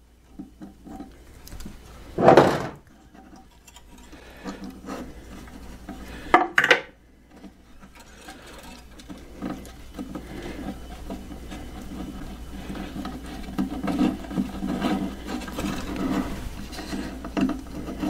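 Close-up handling noise as hands work thin wire through a small hole in a dollhouse's wooden wall: rubbing and scraping, with two louder bumps about two and six and a half seconds in, the second a quick double knock.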